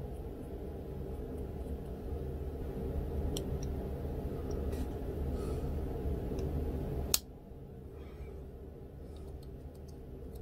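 Faint ticks and light clicks of small plastic model-kit parts being handled and pressed together, over a steady low hum. One sharp click about seven seconds in, after which the hum is quieter.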